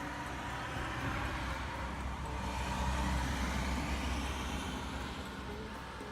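A motor vehicle passing by: a deep rumble that swells to its loudest about halfway through and then fades away.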